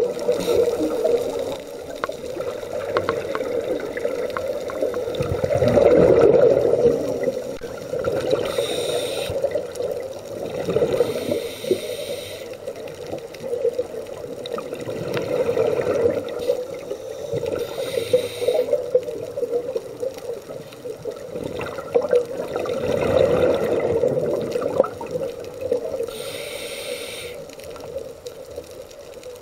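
Scuba diver breathing through a regulator underwater: short hisses of inhaling alternate every several seconds with longer bubbling bursts of exhaled air, over a steady low hum.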